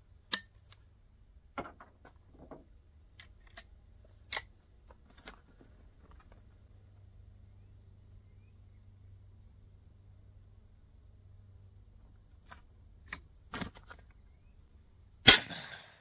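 Scattered clicks and clacks of a .45 Colt rifle being handled and readied, then, about a second before the end, a single loud gunshot from the rifle firing a Barnes Vor-TX .45 Colt round through its 16-inch barrel, with a short ringing tail.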